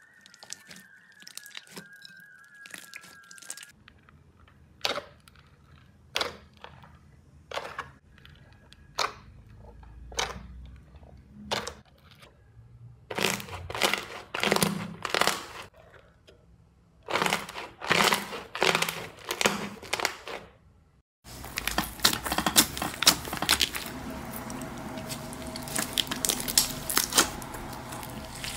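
Slime being squeezed, pressed and pulled by hand, with sticky pops and crackles coming in short clusters. About three quarters of the way through it changes suddenly to a denser, continuous crackling squish of chunky slime.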